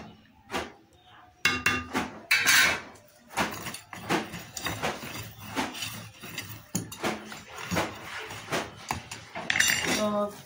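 Kitchen clatter of metal pots and utensils: a quick, uneven run of knocks and clinks that starts about a second and a half in, after a few scattered clicks.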